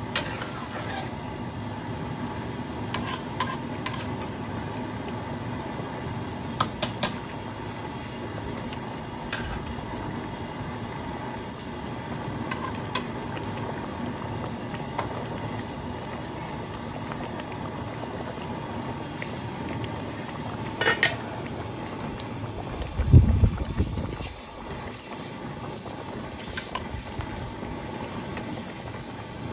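Slotted metal spatula clicking and scraping against an aluminium cooking pot while rice is stirred in boiling water, over a steady hiss. A low thump about three-quarters of the way through is the loudest sound.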